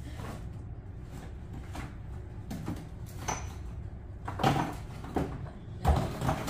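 Knocks and clatters of things being handled in a kitchen, like cupboard doors or containers, over a steady low hum. The loudest come about four and a half seconds in and near the end.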